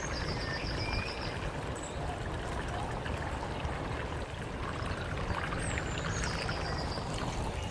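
Small stream trickling and running steadily.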